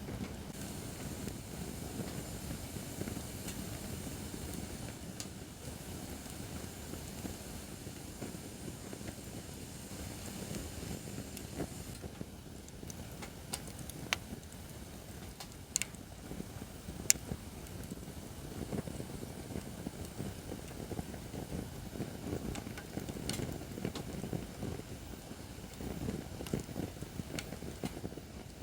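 Acacia firewood burning in a campfire stand: a steady low rush of flame with scattered sharp crackles and pops, the loudest pop a little past the middle.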